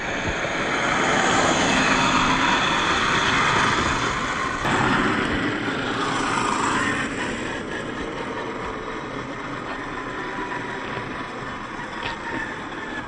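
Traxxas TRX-4 RC crawlers driving over loose gravel: tyres crunching and grinding on the stones, with the whine of the electric motor and gearbox. Louder for the first few seconds, then a sudden change about five seconds in and a steadier, quieter run with a thin whine.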